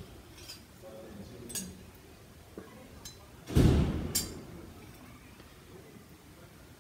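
A drinking glass being handled, giving a few light clinks. About three and a half seconds in comes a louder sip through a straw from the glass of juice.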